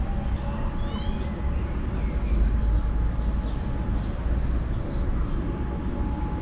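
Steady low rumble of road traffic, with a few short bird chirps about a second in.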